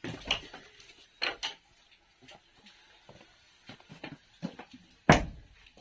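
Bowls and chopsticks clinking and knocking at a meal: a scattering of sharp clicks, with one loud knock near the end.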